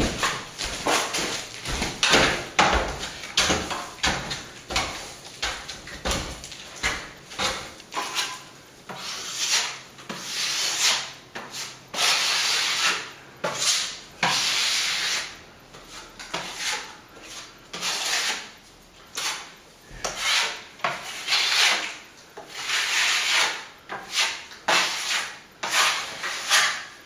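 Plastering trowel scraping across a wet sand-and-plaster fill in a wall chase, in a long run of irregular strokes, some short and quick, others drawn out over a second or so.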